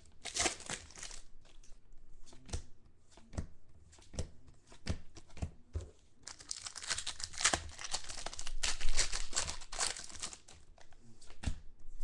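Foil wrappers of Panini Contenders football card packs crinkling and tearing as the packs are opened, in two longer stretches, with scattered light clicks and taps of packs and cards being handled in between.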